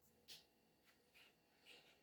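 Near silence: quiet room tone with a few faint, short brushing sounds.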